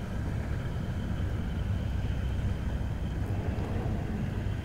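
Steady low drone of boat engines, with a noisy hiss over it.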